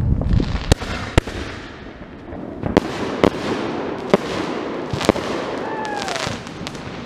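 A small consumer multi-shot fireworks cake, about six shots, firing: a string of sharp bangs over a crackling hiss, then a short falling whistle near the end.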